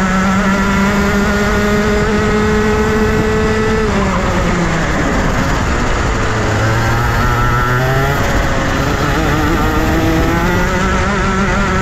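Junior Rotax kart's 125cc single-cylinder two-stroke engine at racing revs. It climbs for about four seconds, falls sharply, runs low and slowly picks up for a few seconds, then climbs hard again from about eight seconds in, the rise and fall of a lap through corners.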